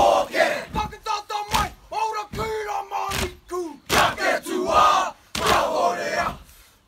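A large group of young men performing a haka, shouting the chant in unison in short, forceful phrases with brief pauses between them.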